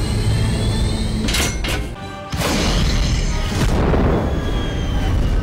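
Dramatic film score with a bomb explosion about two and a half seconds in: a sudden heavy boom that rumbles away over a second or so.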